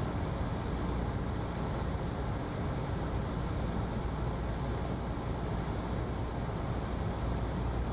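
Steady drone of a single-engine Cessna's piston engine and propeller heard inside the cockpit, an even low hum with rushing noise that holds level throughout.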